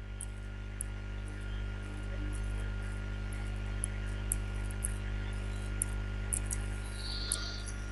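Steady electrical mains hum with a low drone and a thin high tone above it, with faint scattered ticks.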